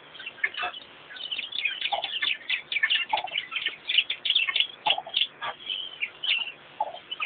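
Small birds chirping in a busy chorus: many short, high chirps several times a second, with a few lower short notes mixed in.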